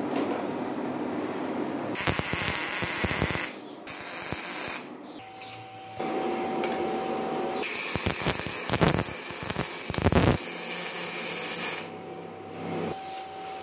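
MIG welder arc running on steel in two bursts: a short one about two seconds in and a longer one of about four seconds in the second half, broken by brief stops.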